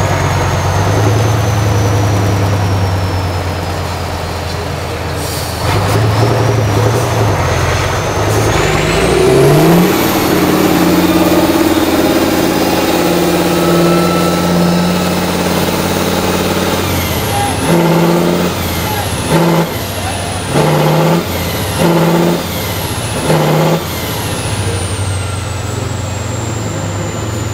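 Tatra 6x6 trial truck's diesel engine working hard under load up a steep slope. It revs up about a third of the way in and holds high, then from about two-thirds of the way in goes through a series of short on-off throttle bursts. A high whistle rises and falls with the revs.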